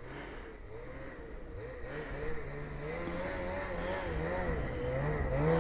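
Ski-Doo 850 two-stroke snowmobile engine revving up and down over and over, growing louder toward the end.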